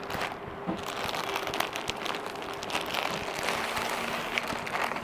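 Clear plastic saree cover crinkling and rustling with many small crackles as a folded saree is handled and slid out of it.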